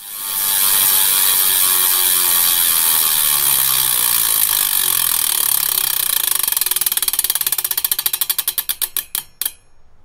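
Bicycle rear hub freewheel ticking as the wheel spins down: the pawl clicks run so fast at first that they blur into a buzz, then slow into separate ticks, further and further apart, until they stop near the end.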